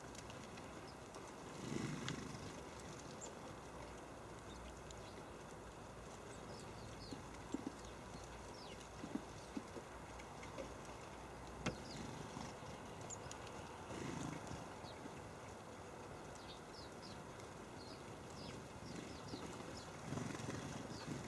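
Small birds at a feeder chirping faintly and repeatedly, with a few sharp taps and a low rumble that swells and fades about three times.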